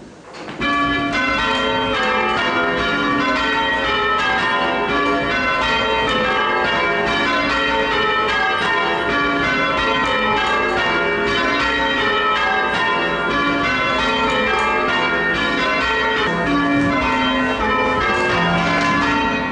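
Church tower bells rung by a band of change ringers in full peal. The ringing begins about half a second in, just after the 'treble's going, she's gone' start call, and then the bells strike in quick, continuous succession.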